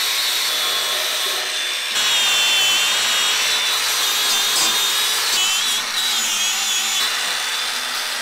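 Cordless grinder with a wire cup brush scouring surface rust off a steel brake booster. The motor runs continuously with a high whine that wavers in pitch and gets louder about two seconds in.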